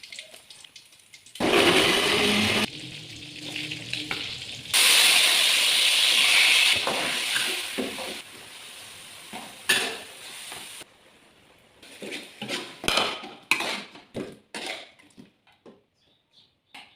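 Food frying in a pan, sizzling loudly in stretches that start and stop abruptly. In the second half it gives way to a series of clinks and knocks of utensils against the pan and dishes, which thin out near the end.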